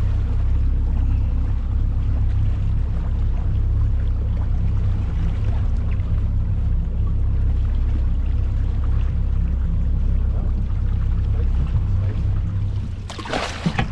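Fishing boat's engine running with a steady low hum, which drops away about twelve seconds in; a short noisy burst follows near the end.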